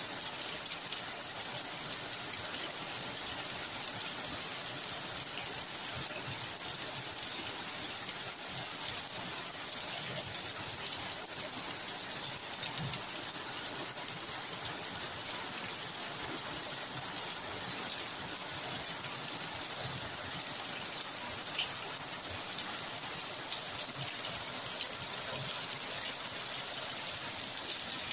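Very heavy rain pouring onto leaves and into standing water on the ground: a steady, unbroken hiss of falling water.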